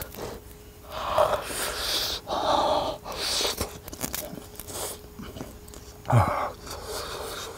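A person eating a hot baked potato, huffing several short breaths out through the mouth to cool the hot mouthful while chewing.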